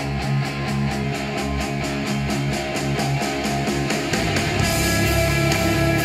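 Instrumental rock music with a steady beat, played through Tannoy Gold 5 studio monitors and picked up by microphones in the room. About four seconds in the sound changes as playback switches to the larger Tannoy Gold 7 monitors.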